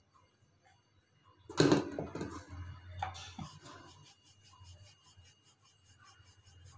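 A wooden rolling pin rolling out paratha dough on a round wooden board. There is a sharp wooden knock about a second and a half in, then rubbing strokes that fade to faint, irregular rolling.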